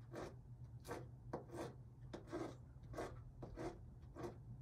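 Knife chopping fresh cilantro: a faint, uneven series of short cuts, about one or two a second, over a low steady hum.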